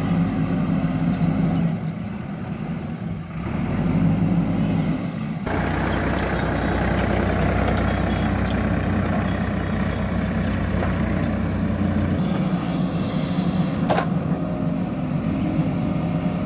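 Diesel engines of a JCB 3DX backhoe loader and a farm tractor running steadily under load while digging and hauling soil. The engine sound shifts abruptly about five seconds in, and there is a single sharp clank near the end.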